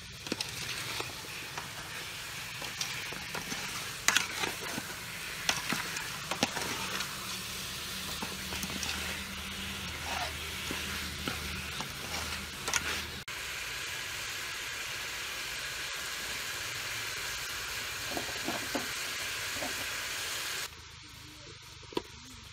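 Fish and vegetables in a thick kroeung paste sizzling in an aluminium pot while a metal spoon stirs and scrapes, with sharp clinks of the spoon against the pot. The hiss changes abruptly about 13 s in and cuts off near the end.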